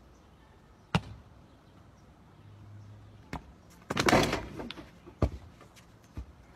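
Basketball shot at an outdoor hoop: a sharp knock about a second in, then the loudest part about four seconds in, a clattering burst as the ball hits the rim while the thrower falls to the ground, followed by a few smaller knocks.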